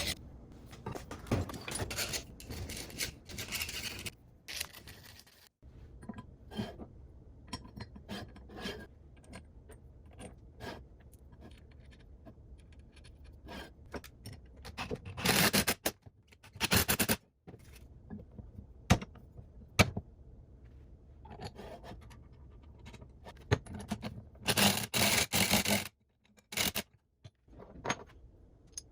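Hand work on the vise's metal parts: on-and-off scraping and rubbing strokes with scattered clicks and knocks, growing louder in two spells of scraping about halfway through and again near the end.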